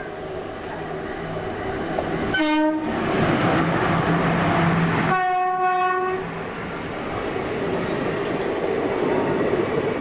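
Indian Railways locomotive horn blowing twice, a short blast about two and a half seconds in and a longer one about five seconds in, over the steady rumble of a passing train.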